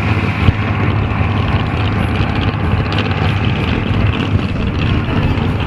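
Engine of a lifted Dodge pickup on huge tires running steadily and loudly as it drives along a tough truck track.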